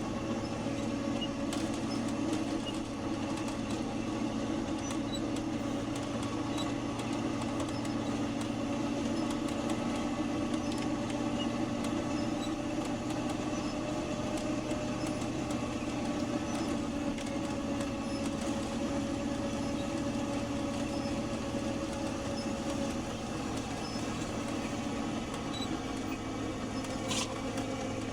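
A snowplow truck's engine running steadily with a constant hum, heard from inside the moving truck.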